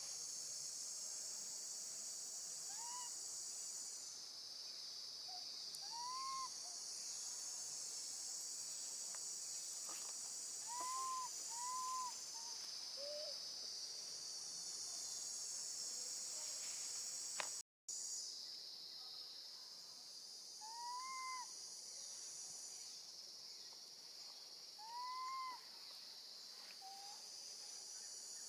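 A steady, high-pitched chorus of insects (cicadas and crickets), with short, soft rising-then-falling animal calls every few seconds, sometimes two in quick succession.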